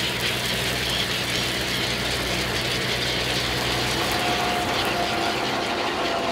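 A fishing boat's engine running steadily with a low hum, under a steady hiss of water streaming off a net being hauled aboard.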